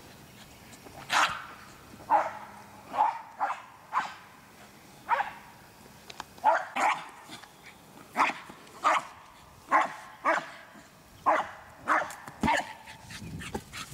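American Eskimo Dog barking over and over in short, sharp barks, about one or two a second at uneven spacing: excited play barking while it chases a ball.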